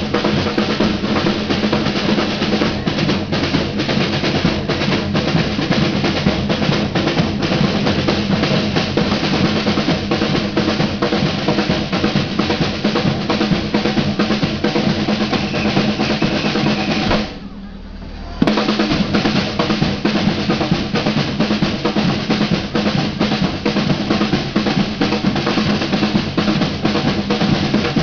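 Samba band of metal surdo bass drums and snare drums playing a fast, dense samba groove with a steady low drum pulse. About two thirds of the way through, the drumming drops away for about a second, then comes back in with a sharp hit.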